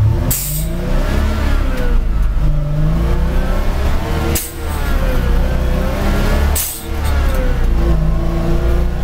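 Foden Mk 6 six-cylinder two-stroke diesel in a 1967 Foden S21 eight-wheel lorry, heard from inside the cab while driving: the engine pitch climbs, then drops away in short breaks near the start, about four and a half seconds in and just before seven seconds, each with a brief hiss, as the driver changes up through the gears.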